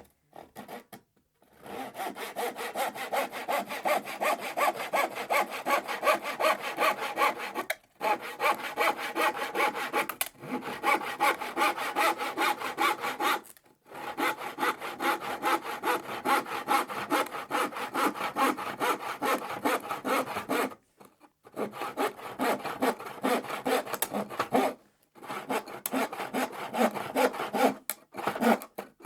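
Hand saw cutting through plywood in rapid, even back-and-forth strokes, in long runs broken by several short pauses.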